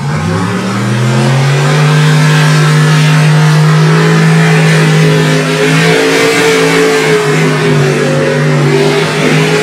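Lifted square-body pickup mud truck's engine revving up over the first second or so, then held at high revs at full throttle as it runs through the mud pit.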